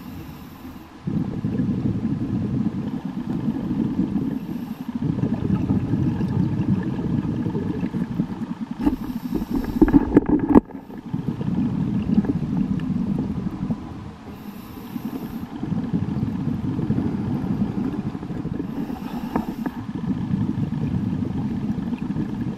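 Scuba diver breathing through a regulator underwater, heard from a camera in its housing: a short hiss of each inhale, then a few seconds of rumbling exhaled bubbles, in a cycle of about five seconds. One exhale about ten seconds in is louder and sharper than the rest.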